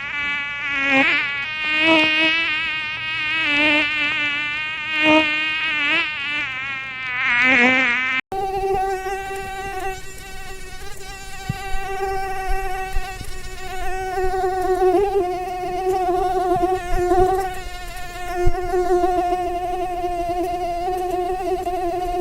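Mosquito in flight, its wings making a thin, continuous buzzing whine whose pitch wavers up and down as it moves about. About eight seconds in it cuts abruptly to a steadier, slightly higher-pitched buzz.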